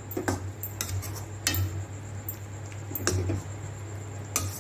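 Metal spatula scraping and clinking against a steel kadai while stirring a wet vegetable masala with milk just added, giving about five sharp, irregular knocks over a steady low hum.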